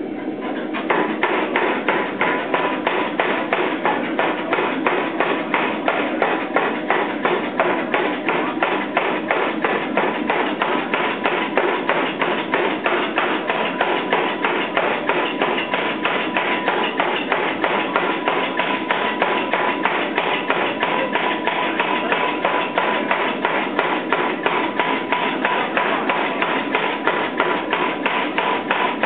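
400 lb Chambersburg air hammer forging a hot billet of 4140 steel, striking in a fast, even run of about four to five blows a second from about a second in. A steady ringing tone runs under the blows.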